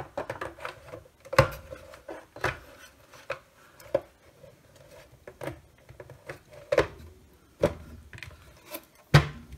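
Hard plastic case parts of a Milwaukee M12 radio being handled and fitted together on a silicone mat: irregular knocks and clicks with rubbing and scraping between them, the loudest knock near the end.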